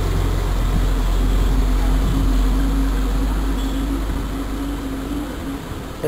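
Steady low engine rumble with a droning hum, fading away about five seconds in.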